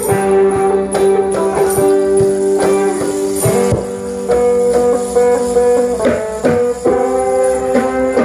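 Sape, the Bornean plucked lute, playing a melody of quick plucked notes over steady held lower tones.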